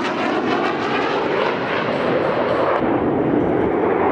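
Fighter jet engine noise during a flyby, with a sweeping shift in tone as the jet passes; the hiss thins out about three seconds in.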